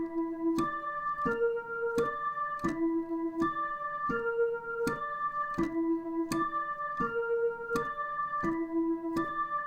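Dutch ambulance siren pattern: electronic, keyboard-like tones stepping through a broken chord, one note after another, with a sharp start to each note. The arpeggio loops steadily, repeating about every three seconds.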